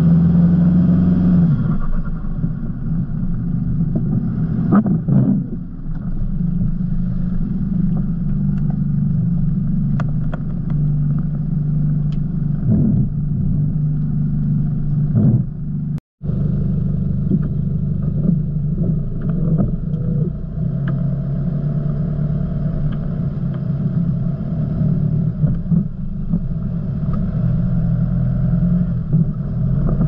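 Four-wheel-drive engine running at low revs as the vehicle crawls through mud, its pitch rising and falling a few times with the throttle. Scattered sharp ticks sit over the engine, and the sound cuts out for a moment about halfway through.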